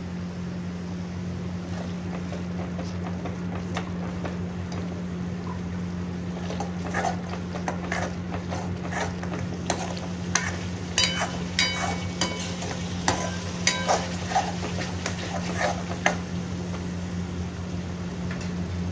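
A spoon stirring and scraping a masala gravy sizzling in a pan, with sharp clinks of the spoon against the pan from about the middle on, a few of them ringing briefly, over a steady low hum.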